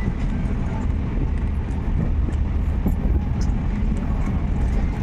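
Steady low rumble of a moving passenger train, heard from inside the coach, with a few faint clicks over it.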